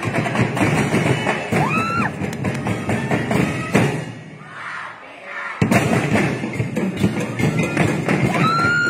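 Festival drum and percussion ensemble playing a fast, driving beat of many drum strikes. About four seconds in the playing drops to a quieter passage, then the full ensemble crashes back in about a second and a half later; a high held tone sounds near the end.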